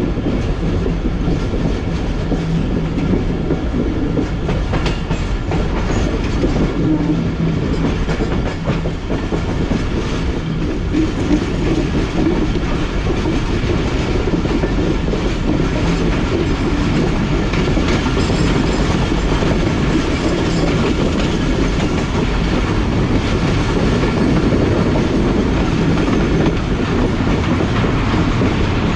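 Passenger train running along the track, heard from on board: a steady rumble of the coach with the wheels clacking over rail joints.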